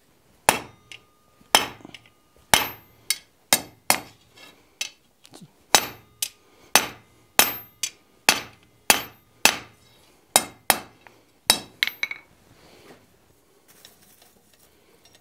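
Blacksmith's hammer striking a red-hot 3/8-inch square iron bar on the anvil, forging the bevelled scarf for a scarf weld. It is a steady run of sharp, ringing blows, roughly two a second, that stop near the end.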